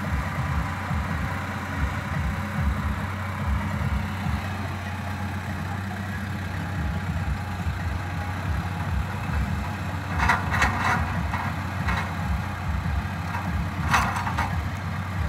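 Dump truck's diesel engine idling steadily close by, a low even hum. Brief louder noises break in about ten and fourteen seconds in.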